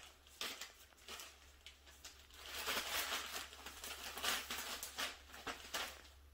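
Cardboard and plastic packaging being handled: light rustling and scattered small clicks and knocks, with a louder stretch of rustling a few seconds in.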